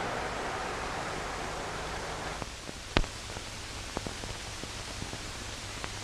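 Steady hiss of an old film soundtrack's outdoor ambience with a faint low hum, broken by a few sharp cracks, the loudest about three seconds in.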